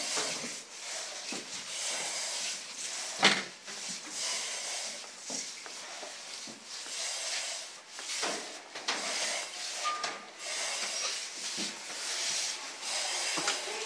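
Firefighter breathing through an SCBA face mask and regulator: repeated hissing breaths, with gear rubbing and scraping as he crawls. One sharp knock about three seconds in is the loudest sound.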